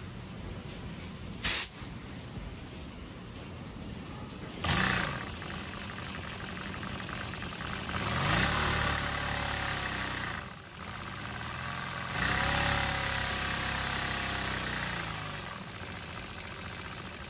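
Model vertical twin-cylinder brass steam engine fed through a hose, hissing and running. Short bursts of hiss come about one and a half and five seconds in, then the engine speeds up with rising pitch and loud hiss, drops out briefly near the middle, surges again, and settles to steadier, quieter running near the end.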